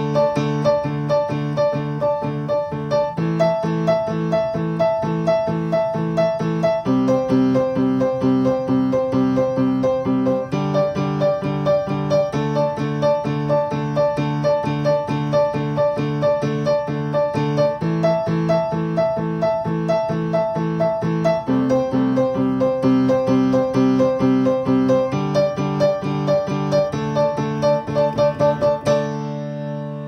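Background piano music: quick repeated notes over chords that change every few seconds, ending near the close on a held chord that fades away.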